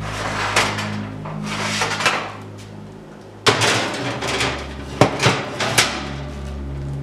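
Metal baking sheet handled and slid onto a wire oven rack: rustling and scraping at first, then a sharp metal clank about three and a half seconds in and a few quick clicks and rattles as the tray is pushed into place. A steady low hum runs underneath.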